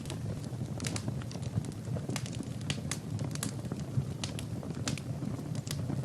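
Wood fire burning in a fireplace: irregular sharp crackles and pops, several a second, over a low steady rush of the flames.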